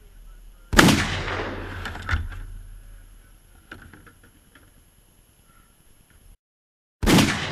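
A single AR-15 rifle shot (.223, 16-inch barrel) about a second in, its report dying away over the next couple of seconds, followed by a few knocks as the struck folding table breaks and the gelatin block falls. Near the end, after a short gap, a second loud shot-like crack.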